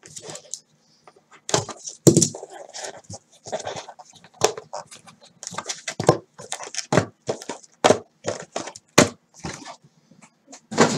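Cardboard trading-card hobby box being opened by hand and its mini boxes taken out and set down. Sharp clicks, knocks and scraping rustles follow each other irregularly.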